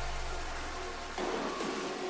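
Electronic background music with a heavy bass fading out; a little over a second in, a new sound with several steady tones comes in.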